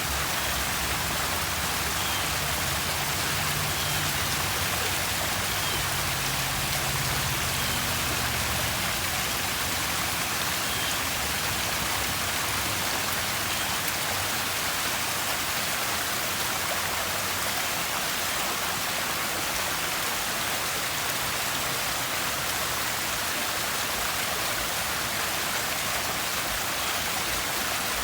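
Running, splashing water: a steady, even hiss of falling water with no change in level.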